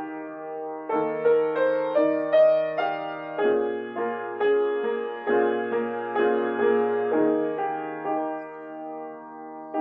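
Solo piano playing a passage of struck chords, about two a second, each left to ring over a sustained bass, easing to a quieter held chord near the end.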